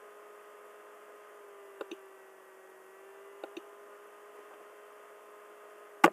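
Computer mouse clicks, each a quick press-and-release pair of ticks, about two and three and a half seconds in, over a steady electrical hum. A louder, sharper click comes right at the end.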